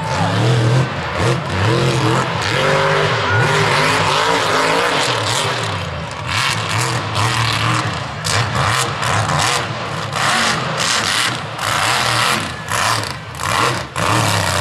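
Mud truck's engine revving hard over and over, its pitch rising and falling, with repeated short bursts of noise through the second half.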